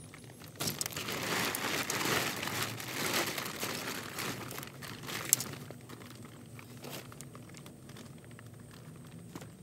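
Plastic cover of a FlowerHouse Dreamhouse pop-up greenhouse crinkling and rustling as it is pushed and shifted while the support poles are fitted, with a sharp click about five seconds in. The rustling quietens after that.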